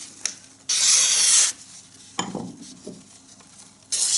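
A sharp knife blade slicing through a sheet of paper twice, each cut a hissing rasp lasting under a second. A light knock comes between the cuts.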